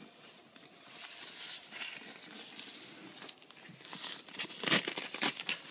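Soft protective wrap over an iMac's screen rustling as it is handled and pulled about, with a couple of louder, sharper crinkles near the end.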